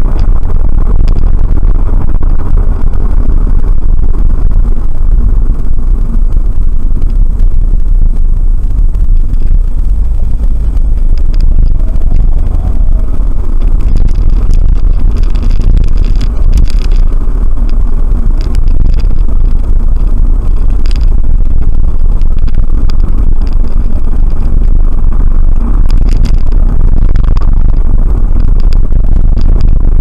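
Steady low rumble of a car driving, road and engine noise heard inside the cabin, with faint scattered ticks and rattles.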